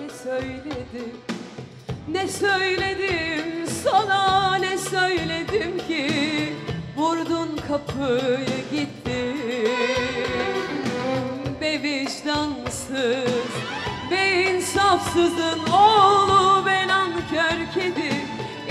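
A woman singing a Turkish pop ballad live with a band, her voice wavering in long ornamented phrases over the accompaniment.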